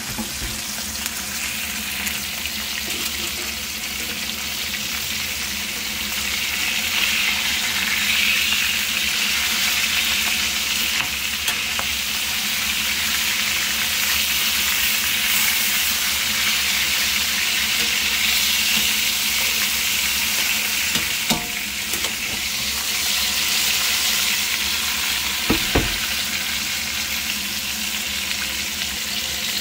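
Burbot (eelpout) pieces sizzling as they fry in butter in a nonstick pan, a steady hiss throughout. A couple of brief clicks come in the second half.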